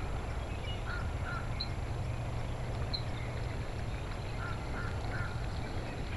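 Faint short bird calls, coming in groups of two or three, over a steady low rumble.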